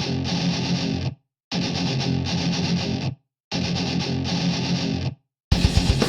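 Intro music: three held, distorted electric-guitar chords, each cut off by a short silence, then drums come in with a steady beat near the end.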